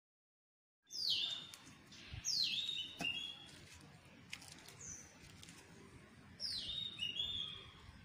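Bulbul singing: three short whistled phrases, each sliding quickly down and levelling off into a brief held note. They start about a second in, with a longer pause before the third.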